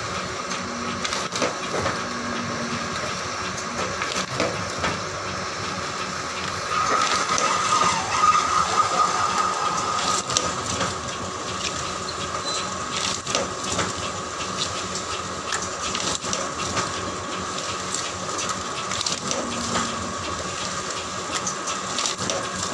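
Paper dona (leaf-cup) making machine with two dies running: a steady motor whine with repeated clicks and knocks as the dies press foil-laminated paper into cups, a little louder for a few seconds in the middle.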